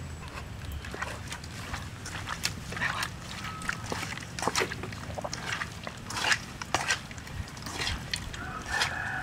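Wet squelching and smacking as a bare hand kneads and tosses boiled pig stomach and intestines with chili paste in a metal wok, in irregular short slaps.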